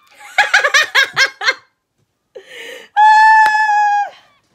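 A woman laughing: a burst of about seven quick laughs in the first second and a half, then a loud, steady high-pitched note held for about a second near the end.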